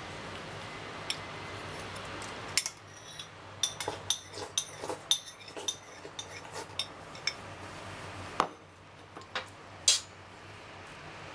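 Metal spoon clinking and scraping against a ceramic bowl: a run of light, ringing clinks starting a couple of seconds in, with one sharper clink near the end. A low steady hum runs underneath.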